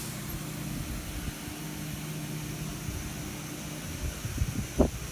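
Diesel freight locomotive engine running with a steady low drone, under a constant hiss. Wind buffets the microphone in a few low thumps near the end.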